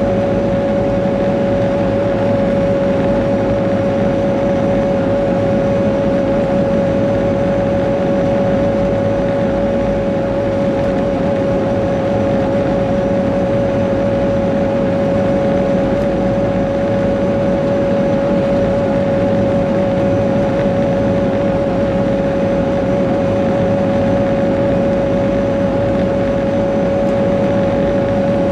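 Caterpillar 140G motor grader's diesel engine running steadily while the machine travels at road speed, heard from inside the cab. A steady whine sits over the engine's drone.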